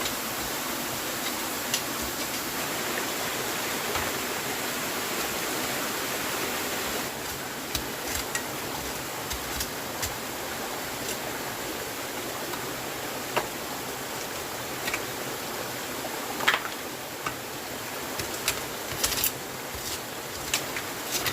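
Steady rushing of water, with scattered sharp ticks and snaps over it. The ticks come more often in the second half; the loudest is about three-quarters of the way through.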